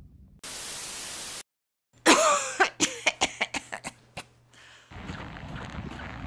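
A brief burst of hiss, then a coughing fit: one loud cough followed by a quick string of shorter coughs that fade away. Wind noise on the microphone comes in near the end.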